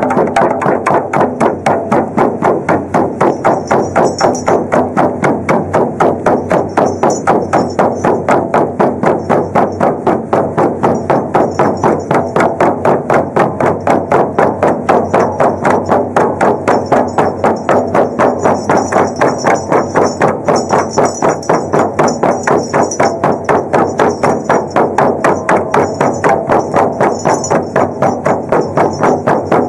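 Shamanic frame drums (бубны) beaten together in a fast, steady, even beat that never breaks.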